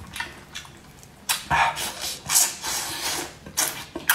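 Close-miked wet eating sounds: sucking, slurping and chewing on pieces of braised anglerfish, in several short irregular bursts.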